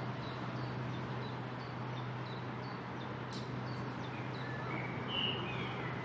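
Bird chirping: short high notes repeating about twice a second, a sharp click about midway, then a few lower call notes near the end, over a steady low hum and hiss.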